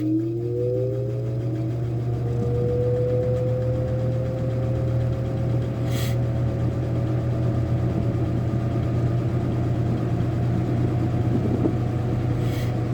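Lasko Galaxy 3723 box fan spinning up on low from a cold start: the blade whine rises in pitch and levels off within the first few seconds, then runs steadily over a strong motor hum, the hum of a still-cold motor. A few faint brief ticks.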